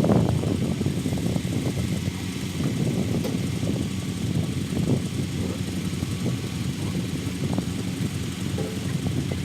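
An engine running steadily with a low rumble, with scattered knocks and rattles over it.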